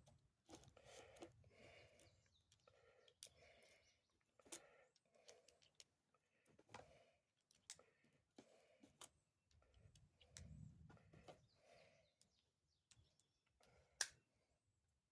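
Faint clicks and handling sounds of metal parts, with two sharper clicks, one about four and a half seconds in and one near the end.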